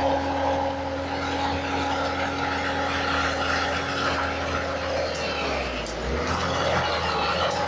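Skid steer engine running steadily, its pitch sagging briefly about six seconds in before picking back up.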